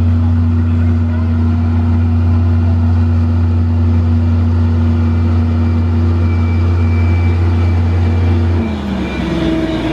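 A vehicle engine running steadily with a low hum, its pitch dropping and sliding lower near the end.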